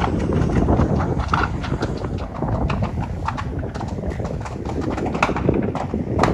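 Wind buffeting the phone's microphone in a steady rumble, with many irregular sharp cracks and pops scattered over it, the strongest about five seconds in and near the end.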